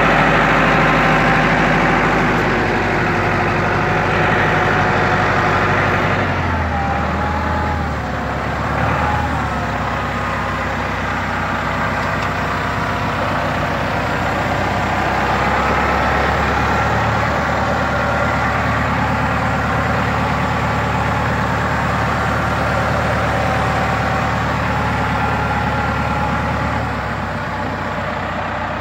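Case International 885 tractor's diesel engine running steadily, its note shifting about six seconds in.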